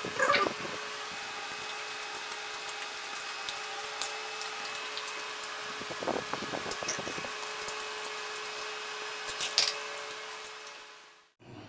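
A steady mechanical hum, like a small electric motor, with a few sharp clinks and scrapes of a metal fork against a ceramic plate of noodles being eaten: the loudest just after the start and at about nine and a half seconds, a cluster around six seconds. The sound fades out near the end.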